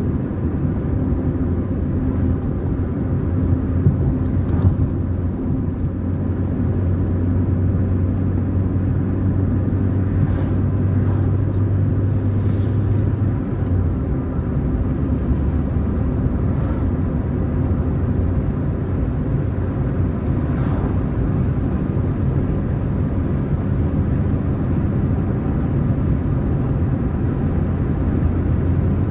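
Car driving along a road: steady low engine and road rumble. The engine note shifts about halfway through.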